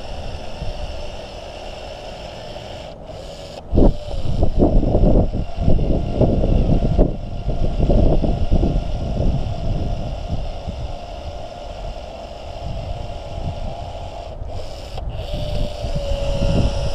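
Wind rumbling on the microphone with handling knocks, loudest a few seconds in, over the faint steady whine of a power caulking gun laying a urethane bead around a windshield; the whine comes through clearer near the end.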